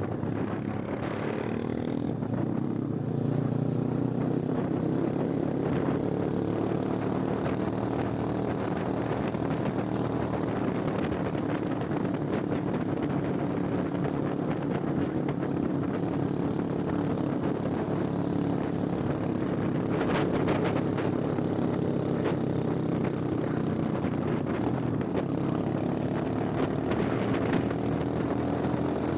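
Motorcycle engine running steadily while riding, its pitch rising and falling a little.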